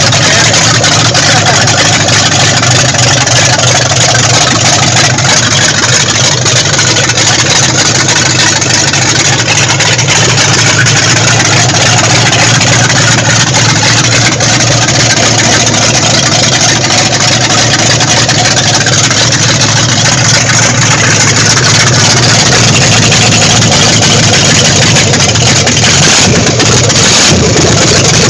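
A freshly rebuilt Chrysler 440 big-block V8 in a 1974 Dodge Monaco running steadily on its first run after the rebuild, with a brief change in the sound near the end.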